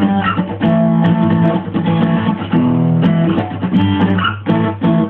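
Acoustic guitar strummed, ringing chords with a steady rhythm of strokes and a few quick, sharp strums near the end.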